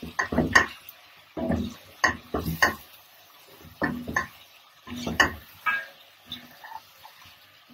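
Wooden spoon stirring chunks of beef stew in a stone-coated non-stick pot: repeated short bursts of scraping and soft knocks against the pot, about one a second.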